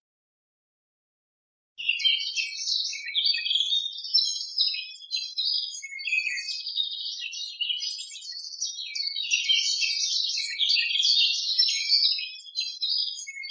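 Small birds chirping and singing in a dense, unbroken chorus of high twittering notes, starting suddenly about two seconds in after total silence.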